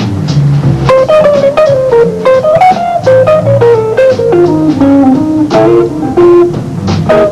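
Guitar music: a melody of single plucked notes moving up and down over a bass line.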